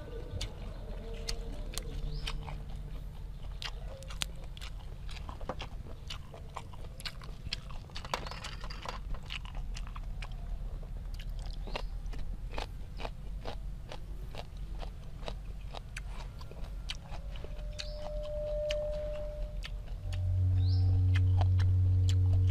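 Close-miked chewing and crunching of raw yard-long bean and grilled apple-snail meat: many small crisp crunches and wet chews. Near the end a rooster crows loudly for about three seconds.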